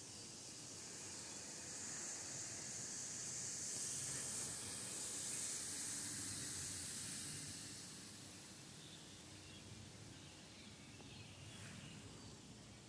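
Woodland ambience: a soft high hiss swells over a few seconds and then fades, with one faint tap near the end.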